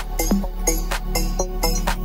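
Background music with a steady beat, about three notes a second.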